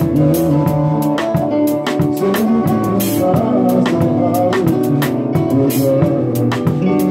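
Music with guitar and a drum kit keeping a steady beat.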